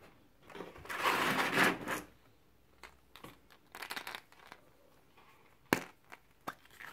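Hands rummaging among plastic and foil-wrapped surprise eggs inside a giant paper egg shell. A rustle of crinkling and rubbing comes about a second in, followed by scattered light clicks and taps of plastic eggs knocking together.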